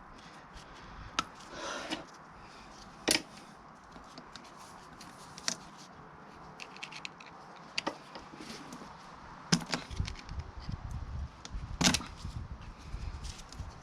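Scattered sharp metallic clicks and knocks, about six spread over the seconds, as a motorcycle drive chain and a chain breaker tool are worked and handled while the old chain is split. Low rumbling handling noise comes in near the end.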